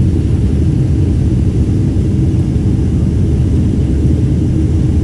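Airliner cabin noise: the steady low rumble of the jet engines and airflow heard from inside the passenger cabin.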